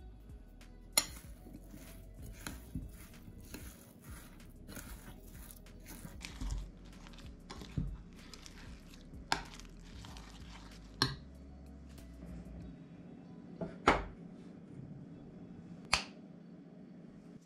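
A utensil stirring diced apples into a thick batter in a glass bowl, with wet squelching and scraping, and now and then a sharp clink of the utensil or the bowl against glass or the counter. Several single clinks stand out, the loudest a little before the end.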